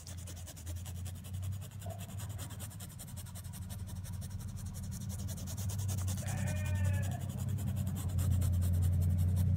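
Paintbrush scrubbing back and forth on stretched cloth as white paint is blended in, over a steady low hum that grows louder toward the end. About six seconds in, a brief animal call is heard.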